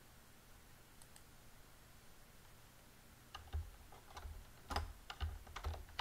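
Near silence for about three seconds, then a string of irregular clicks with dull knocks, several a second: typing on a computer keyboard.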